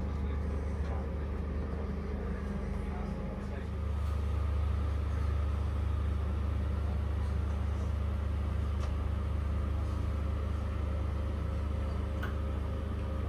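Steady low hum inside a standing intercity passenger coach, its level stepping up slightly about four seconds in.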